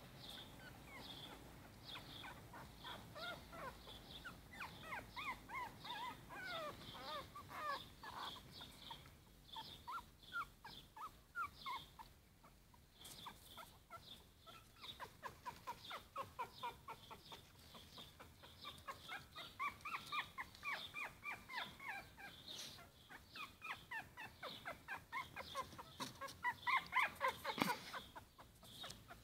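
Four-week-old Yorkshire Terrier puppies squeaking and whimpering in many short, high cries that slide in pitch, coming in clusters and loudest near the end. A steady run of faint, very high chirps sounds behind them.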